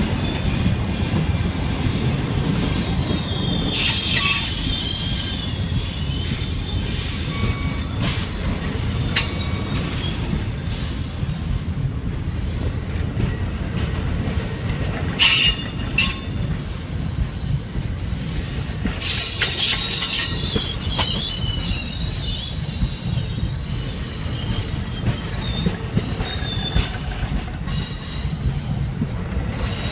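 Amtrak Superliner passenger cars rolling past: a steady low rumble of the train with sharp clicks now and then, and high wavering wheel squeals twice, about 3 seconds in and again near 19 seconds.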